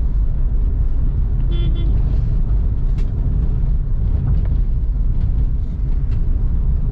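Steady low rumble of road and engine noise inside a moving van's cabin. A brief pitched sound comes about a second and a half in.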